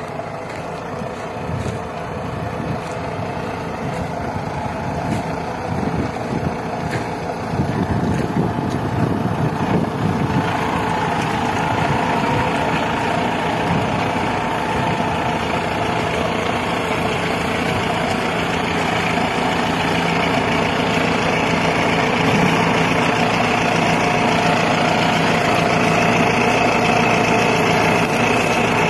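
Mahindra Arjun tractor's diesel engine running steadily under load while pulling a plough through the field, growing louder as it comes close.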